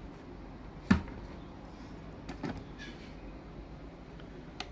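Handling knocks as running shoes are moved on and off a small digital scale with a clear plastic cover: one sharp knock about a second in, a softer knock halfway through, and light clicks and scrapes.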